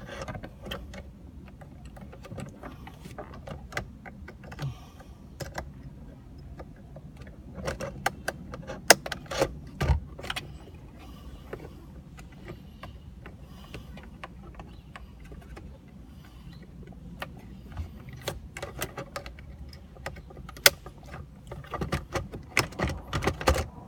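Scattered clicks, taps and knocks of plastic shifter-console trim and a bulb plug being handled and pressed back into place, busiest around eight to eleven seconds in and again near the end, over a steady low hum.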